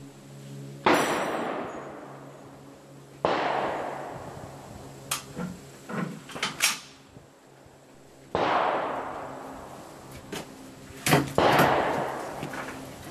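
Gunshots from other firing positions on a covered range: five sharp reports, each with a long echoing tail, the last two close together near the end, with a few light clicks in between.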